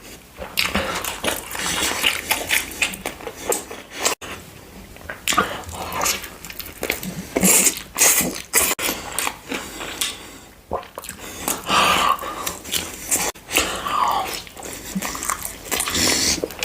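Close-miked eating: a person biting and chewing crunchy food, with irregular sharp crunches throughout.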